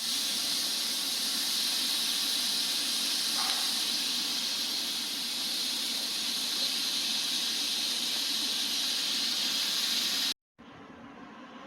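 A loud, steady high hiss, like a jet of pressurised air or spray, that cuts off suddenly near the end, leaving a fainter background noise.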